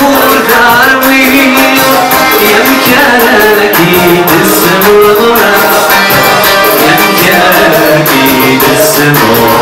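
Live Kabyle folk song: a man sings over a plucked long-necked lute, with a steady, even hand-percussion beat.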